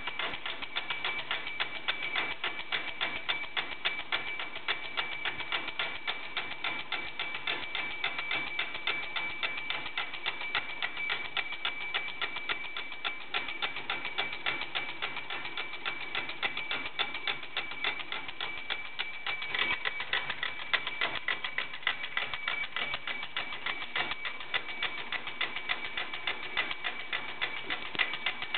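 C.1900 monk alarm clock's alarm going off: the hammer strikes the bell in a fast, even clatter over a steady ringing tone.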